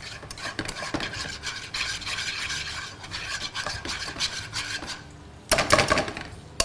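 A utensil scraping and stirring a thickening starch-and-water mixture around a ceramic non-stick pan, in continuous rasping strokes. The mixture is turning into a gel as it heats. Near the end there is a louder stretch of scraping, just under a second long.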